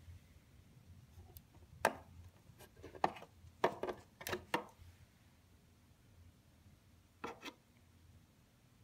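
Light knocks and clicks of hard parts being handled: one about two seconds in, a quick cluster a second later, and a pair near the end.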